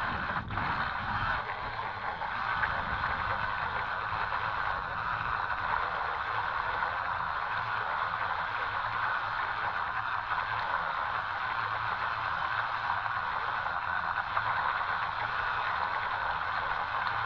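Twin small 130-size DC motors of a toy RC boat running steadily, with the propellers churning the water.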